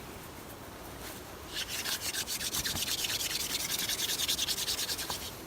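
Hand drill fire-making: a wooden spindle spun between the palms, grinding against the wooden hearth board in a fast, scratchy rasping. It starts about a second and a half in and stops near the end, at the stage of warming the board before smoke comes.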